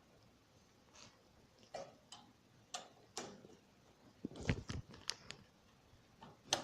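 Irregular light clicks and knocks of desktop computer parts being handled and fitted in a PC cabinet, with a duller knock about four and a half seconds in.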